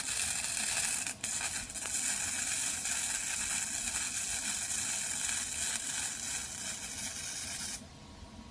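Electric arc welder crackling and sizzling as a bead is laid on the broken lawnmower handle, with a brief break about a second in; the arc cuts off suddenly near the end.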